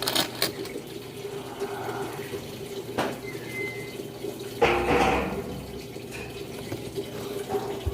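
Panasonic 14 kg washing machine filling with water for the rinse: a steady rush of running water into the drum over a low hum. There are a few light clicks and a brief louder sound about five seconds in.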